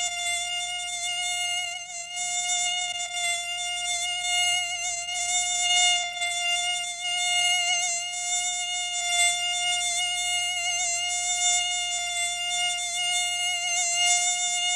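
Mosquito buzzing: one steady, high whine that wavers slightly in loudness and pitch without stopping.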